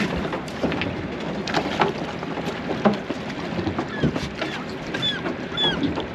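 Knocks, clatter and water noise on a fishing boat's deck during a bite, with wind on the microphone. Short high falling chirps come several times in the second half.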